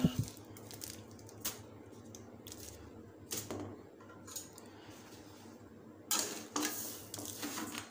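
Foil-wrapped corn cobs being set down into a bed of heated salt in a metal kadai, for salt-roasting. Soft foil crinkles and a few light knocks, with a longer rustling scrape near the end.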